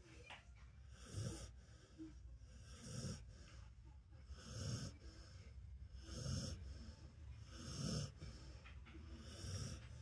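A dog snoring in deep sleep: six slow, evenly spaced snores, about one every second and a half, each a low rumble with a wheezy hiss.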